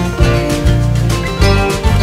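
Background music led by plucked acoustic guitar, with a steady beat.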